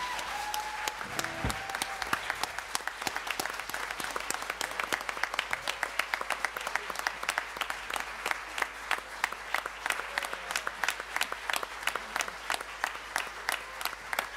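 Audience applauding, the dense clapping thinning toward the end into more separate individual claps.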